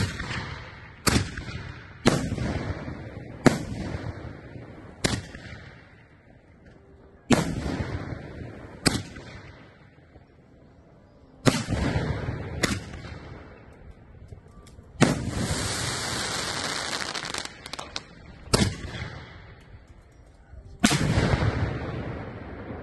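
7-inch aerial firework shells being fired from a rack and bursting overhead. There are about a dozen sharp booms, one to three seconds apart, each trailing off in a rolling echo. About 15 seconds in comes a few seconds of steady hissing.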